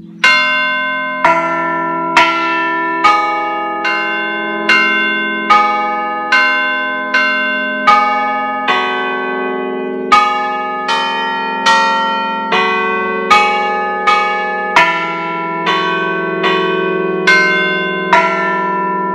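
Church bells of a five-bell set cast by De Poli in 1949 and tuned in a slightly sharp E, rung by bell-ringers as a Brescian-style concerto: single bell strikes at a little over one a second in a changing melodic sequence, each note ringing on over the hum of the ones before.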